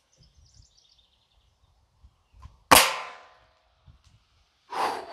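A single shot from a Gamo Swarm Fusion .22 break-barrel air rifle: one sharp crack about two and a half seconds in, as the pellet strikes a metal cookie-sheet target. A short ringing decay follows.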